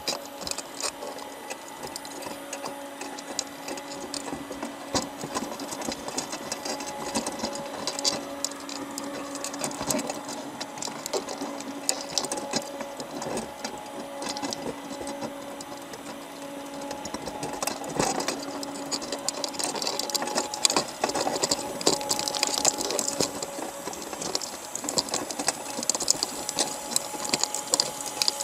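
Dense, rapid underwater clicking and ticking as crabs clamber over each other and over the wire mesh of a crab pot, with a steady low hum that fades in and out.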